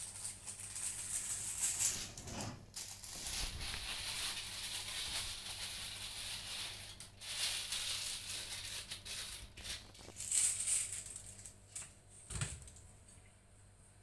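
Birds scuffling on a window ledge just outside the glass, a rustling, rattling scratch in stretches of a few seconds, with a couple of dull thumps.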